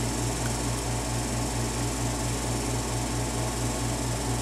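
Steady background machine hum and hiss, its low hum pulsing evenly several times a second, with a faint tick about half a second in from the pick working the lock's pins.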